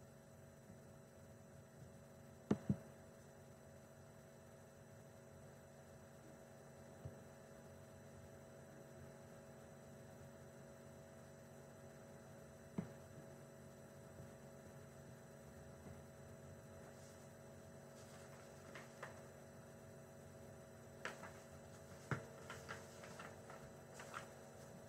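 Near silence: a steady low electrical hum, with a few faint clicks, a close pair of them about two and a half seconds in and a small cluster near the end.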